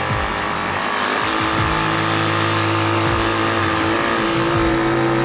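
ATV (four-wheeler) engine running under load while towing a snow tube, its pitch shifting up and down, with wind on the microphone.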